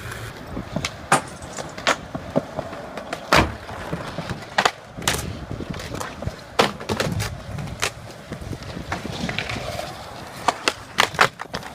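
Skate wheels rolling over pavement with a low rumble, broken by sharp clacks and knocks at irregular intervals.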